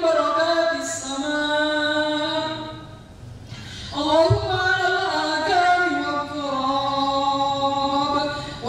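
A man's voice chanting an Arabic rain-prayer supplication in long, melodic held notes, with a short pause a little before the middle.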